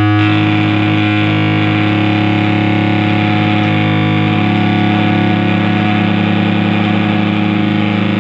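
Live harsh-noise set: loud, distorted amplified feedback and electronic noise over a steady low hum and held tones. Just after the start it changes from a clean steady drone into a dense, gritty distorted wash.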